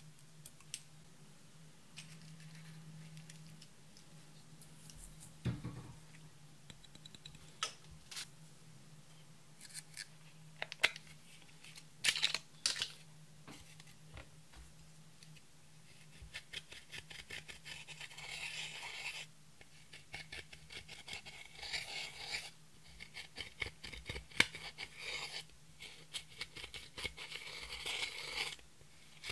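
Pressed eyeshadow and blush being scraped and crushed in their compact pans with a metal dotting tool, heard as rapid, dense scratching in runs during the second half. Before that there are scattered clicks and taps.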